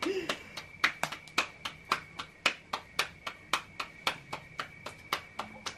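Corn masa being patted out into a tortilla between bare palms: a steady run of soft slaps, about three or four a second.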